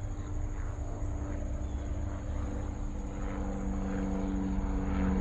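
A steady engine drone, two even tones over a low rumble.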